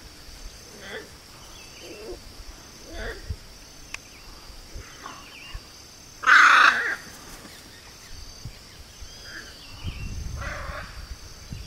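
Hyacinth macaws calling: short, quieter calls every second or two, and one loud call about six seconds in, much louder than the rest. A steady high insect drone runs underneath.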